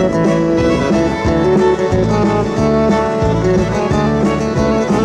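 Instrumental country-style music with fiddle and guitar playing over a steady beat.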